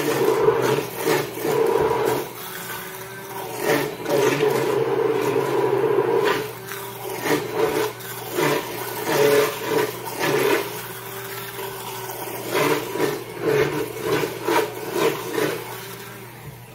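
Immersion blender turned up to a higher speed, its motor whirring under the wet churning of roasted tomato soup being puréed in the pot. Steady for the first six seconds or so, then in short uneven surges as the blade works through the soup.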